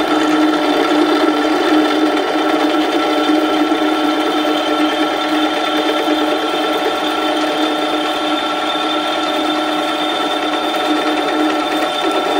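Benchtop drill press running at its lowest speed, a 3/8-inch bit boring an injector hole through a fuel rail; a steady motor whine that holds even pitch throughout.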